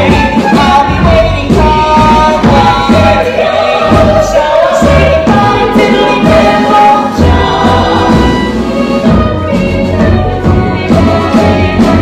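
Musical theatre ensemble singing together in chorus over an instrumental band accompaniment with a steady beat.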